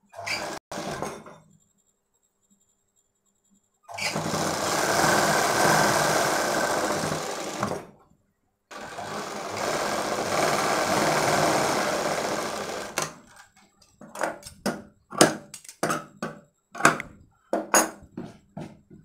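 Sewing machine running in two steady stretches of about four seconds each with a short pause between, then a string of short sharp clicks and taps as the fabric is handled.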